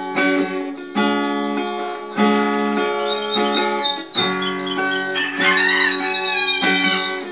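Acoustic guitar music with strummed chords. From about halfway through, quick high notes that fall in pitch play over the guitar.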